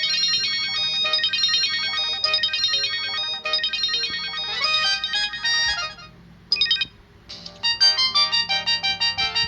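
Samsung GT-E2120 mobile phone playing its ringtones through its small speaker, with bright electronic melodies of quick notes. One tune stops about six seconds in, and after a short break with a couple of brief notes another ringtone begins with rapid repeated notes.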